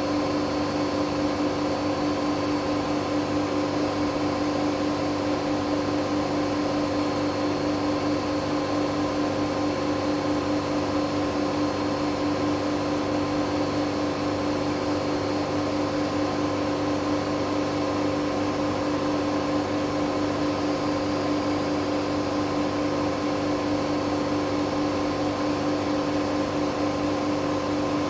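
Hoover Dynamic Next washing machine in a spin-only cycle, its drum spinning at high speed with a steady whine that holds level and does not change.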